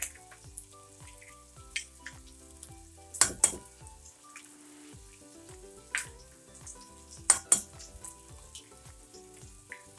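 Sharp clinks of a utensil against a bowl, a handful of separate strikes, some in quick pairs, as eggs are mixed. Underneath, a pan of onion, garlic and tomato sizzles as it sautés.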